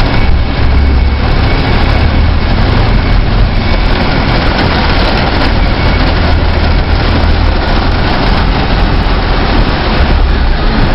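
Car driving through flooded streets in heavy rain: a steady rush of rain and water noise over a low engine rumble.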